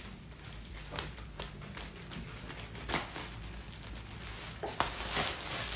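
Scattered light taps and knocks of items and parcels being handled, with plastic packaging starting to rustle near the end.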